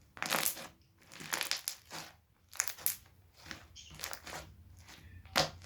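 Clear slime, over-activated with too much borax, being squeezed and worked by hand: a series of short, irregular squelches and pops with brief pauses between them.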